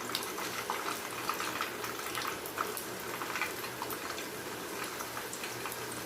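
Chicken kofta balls deep-frying in a pan of oil: a steady sizzle with many small, irregular crackles and pops.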